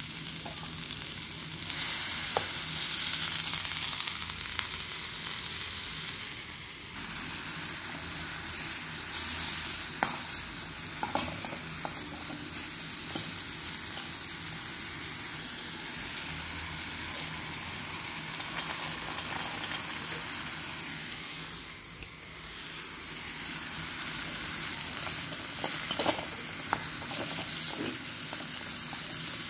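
Chopped onion, green chillies and capsicum sizzling in hot oil in a steel pot, with a steady hiss that rises about two seconds in. A metal spoon stirring the mix scrapes and clicks against the pot now and then, more often near the end.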